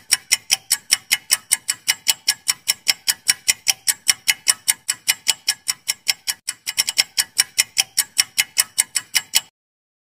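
Clock-ticking sound effect for a quiz countdown timer: fast, even ticks, about five a second, stopping suddenly shortly before the answer is shown.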